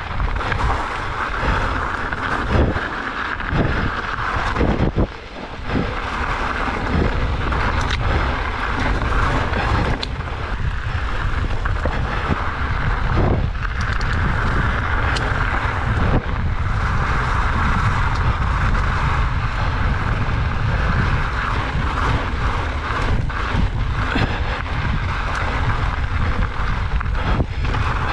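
Mountain bike riding down a dirt trail at speed: wind rushing over the microphone, steady tyre noise on the trail, and frequent short knocks and rattles as the bike goes over bumps and rocks.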